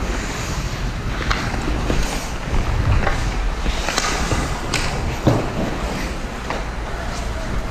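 Hockey play: skates scraping and a handful of scattered sharp clacks from sticks and puck, over a steady low rumble.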